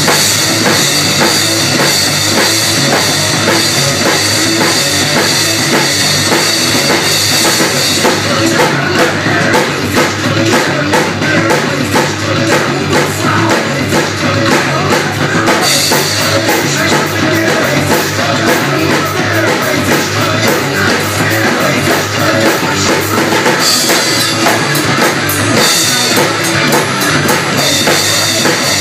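A Ludwig drum kit played in a driving rock beat, drums and cymbals hit hard, along with a recorded rock song.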